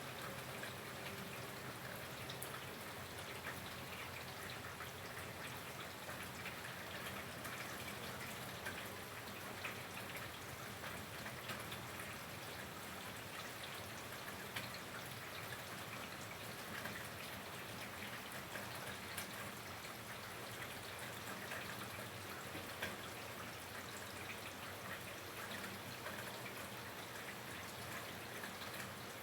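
Steady rain falling, an even hiss dotted throughout with many small drop ticks.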